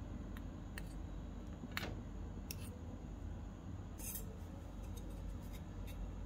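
Scattered light clicks and taps from handling a miniature steel kadai and its lid, with a cluster about four seconds in, over a low steady hum.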